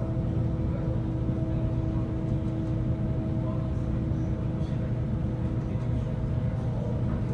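Steady drone of a large car ferry's engines, with several unchanging hum tones, over a gusty low rumble of wind on the microphone.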